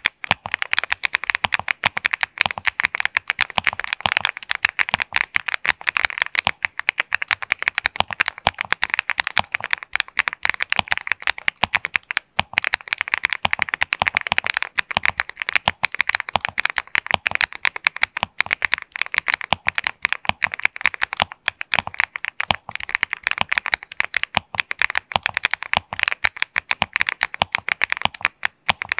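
Continuous fast typing on an Epomaker P75 mechanical keyboard fitted with Cerakey V2 alumina ceramic keycaps: a dense, unbroken stream of sharp keystroke clicks.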